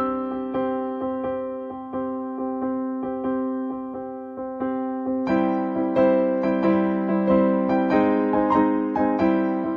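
Background music on a piano-like keyboard: a gentle melody of struck notes that ring and fade, growing fuller about five seconds in.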